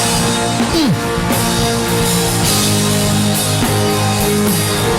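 Worship music from a live band: sustained chords held under a steady beat, with one short downward-bending note a little under a second in.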